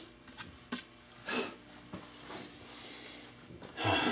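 Handling noises on a workbench: a string of short rubs and light knocks as tools and parts are picked up and moved, the loudest near the end.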